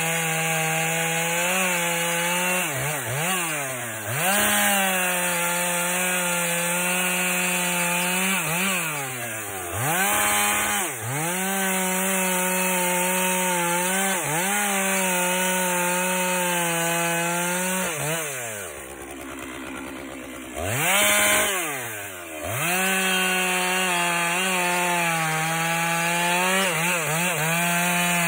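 Two-stroke chainsaw running at full throttle and cutting wood, its revs sagging and recovering every few seconds. About two-thirds of the way through it drops to idle for a couple of seconds, then revs back up.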